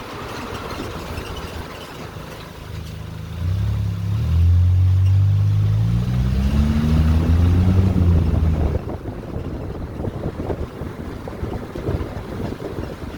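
Suzuki Jimny on the move with rumbling road noise. A loud low drone starts a few seconds in, rises slightly in pitch for about five seconds, then cuts off abruptly. It is the kind of abnormal noise from the suspension or running gear that the owner is chasing.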